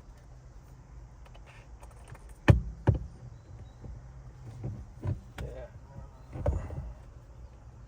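Sharp knocks and clunks of a steering wheel being worked onto a car's steering column. The two loudest come about half a second apart, roughly two and a half seconds in, followed by several softer bumps.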